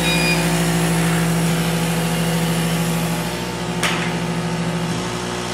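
CO2 laser cutter running: a steady machine hum made of several held tones over a hiss, with a single sharp click about four seconds in.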